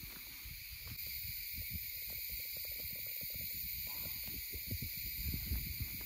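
Steady high-pitched chorus of forest insects, with irregular low thuds of footsteps on a trail underneath.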